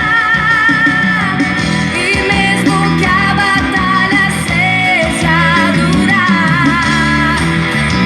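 A gospel forró song: a voice singing a wavering melody over guitar and bass.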